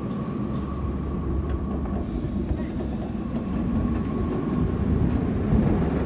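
B&M launched roller coaster train running along its steel track on a test run: a steady rumble of wheels on rail, with a faint high whine that fades in and out.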